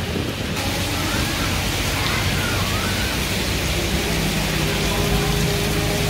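Heavy rain pouring down in a steady hiss, which jumps louder about half a second in. A low steady hum with a held tone comes in about halfway through.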